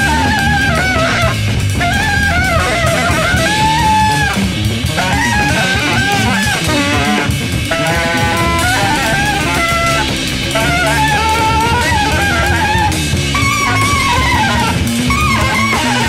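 Band music in a jazz-rock style: drum kit and electric bass under a melodic lead line that slides and bends in pitch, with a short passage of stepped repeated notes about eight seconds in.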